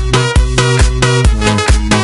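Electronic dance music: a steady, heavy kick drum at about two beats a second under sustained synth chords.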